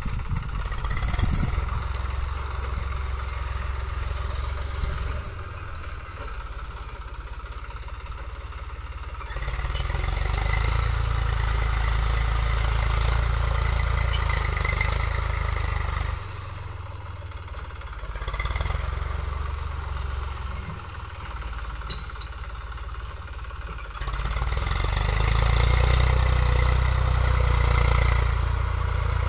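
Eicher 380 tractor's diesel engine running steadily under load as it pulls a cultivator through ploughed soil. It swells louder for several seconds about a third of the way in and again near the end.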